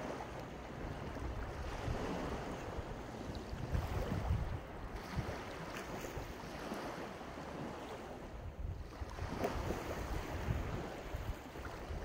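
Sea waves breaking and washing onto the shore, with wind buffeting the microphone in uneven low gusts.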